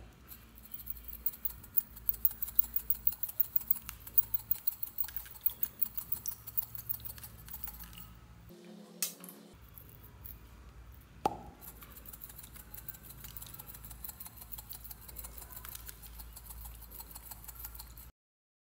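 Star-shaped glitter confetti rattling in a small glass bottle and pattering out as it is shaken, in rapid ticks that are densest in the first half. A single sharp glassy clink a little past the middle, then lighter ticking.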